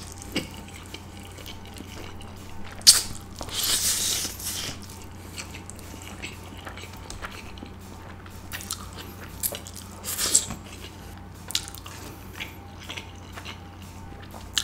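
Close-miked eating of Samyang jjajang instant noodles with chopsticks: the noodles slurped in two longer hissing pulls, about three and a half seconds in and near ten seconds, with chewing and mouth clicks between. A fan runs with a steady low hum underneath.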